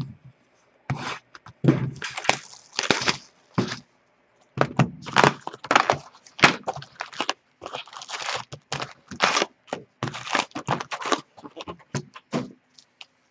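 A sealed trading-card box being unwrapped and opened by hand, then its stack of foil card packs lifted out. Irregular crackling, tearing and rustling of plastic wrap, cardboard and pack wrappers, with a short pause partway through.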